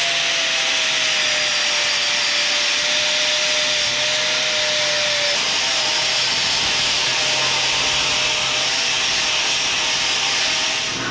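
Angle grinder grinding mill scale off a steel box frame, running steadily under load. The motor's whine sags a little in pitch over the first few seconds.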